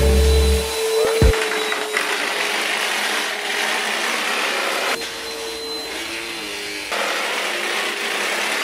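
Upright bagless vacuum cleaner running steadily as it is pushed over the floor, an even whooshing motor noise with a faint steady tone. It dips slightly in level in the middle and then comes back up.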